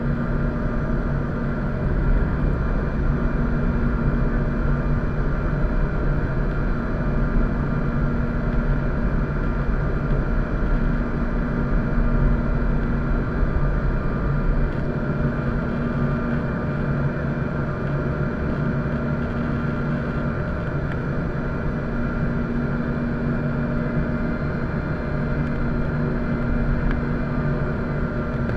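Cabin noise in a Bombardier CRJ700 in flight on approach: a steady rush of airflow and the hum of its General Electric CF34 turbofans, with several steady whining tones over it. A deep rumble is stronger through the first half and eases off about halfway through.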